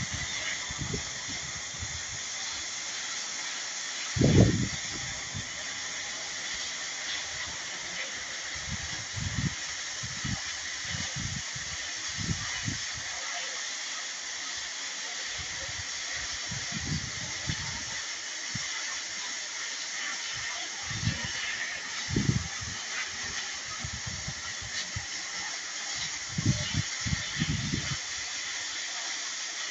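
QSMYOYE 2200 W, 150 bar electric pressure washer's water jet spraying, a steady hiss, with short low rumbles now and then, the loudest about four seconds in.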